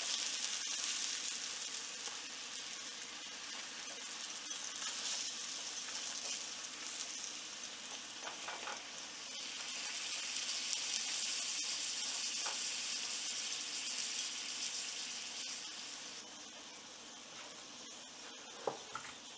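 Butter sizzling as it is spread with a spoon over a paratha frying on a hot tawa: a steady high hiss, with a few light clicks. The sizzle eases off about three-quarters of the way through.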